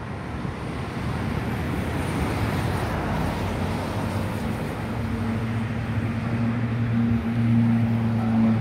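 Distant rumble of a Boeing 737-800's CFM56 jet engines on final approach. A steady low hum comes in about halfway through and grows louder toward the end.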